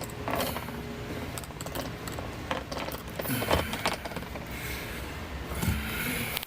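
Irregular mechanical clicking, rattling and knocks of a plastic deck box's parts and fittings being handled and fitted together during assembly, with a louder knock about three and a half seconds in and another near the end.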